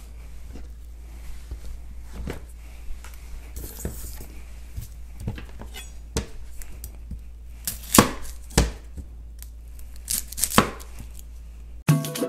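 Kitchen knife tapping and knocking on a cutting board while an onion is trimmed and peeled, with scattered single strikes, the sharpest about eight and ten and a half seconds in. Music with a steady beat cuts in right at the end.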